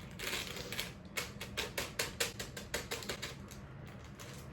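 Dry cake mix with candy bits being shaken out of its packet into a bowl: a quick, irregular run of sharp clicks and patters with some rustling, densest from about one second in to about three seconds, then fading.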